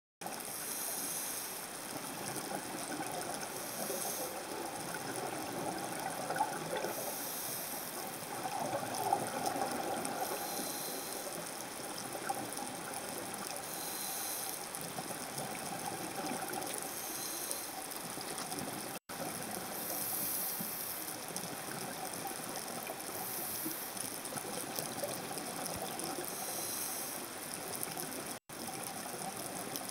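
Muffled underwater wash with scuba regulator exhaust bubbles gurgling out about every three seconds, one breath after another. The sound cuts out briefly twice near the end.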